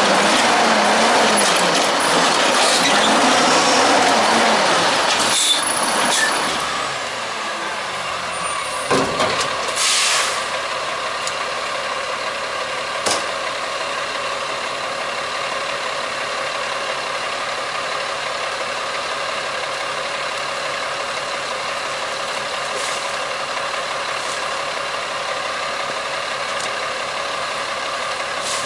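A WhiteGMC Amrep automated side-loader garbage truck's diesel running at high revs, its pitch rising and falling, while the arm dumps a cart. About six seconds in this gives way to a Peterbilt 320 front-loader garbage truck's diesel idling steadily. Over the idle come a short burst of air-brake hiss about nine seconds in and a single knock a few seconds later.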